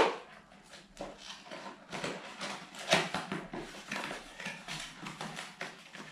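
Small cardboard box being picked and pried open by hand: irregular scratching, crackling and rustling of cardboard and sealing tape, with a sharp knock as it begins.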